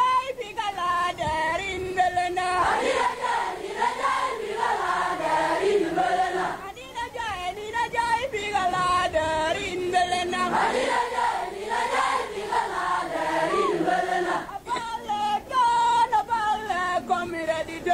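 A crowd of voices singing a song together in chorus, with brief breaks between phrases.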